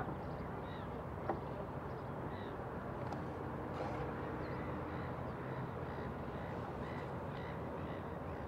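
Outdoor ambience by the water: a steady background rush with faint, scattered bird calls.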